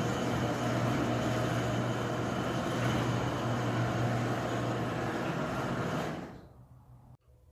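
Electric garage door opener running a sectional garage door along its tracks, a steady motor hum under the rolling rattle of the door, which stops about six seconds in.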